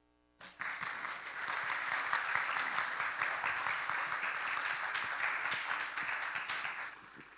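Congregation applauding, starting about half a second in and dying away near the end.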